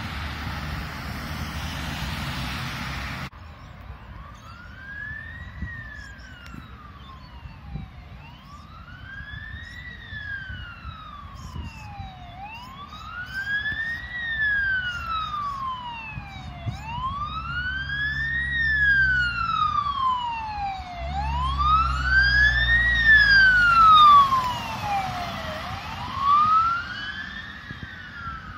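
Wind and traffic noise for the first three seconds, then the wail siren of a Fire Rescue Victoria commander's vehicle, sweeping slowly up and down about every four seconds. The siren grows louder as the vehicle comes close and passes with its engine and tyre noise, then fades as it drives away.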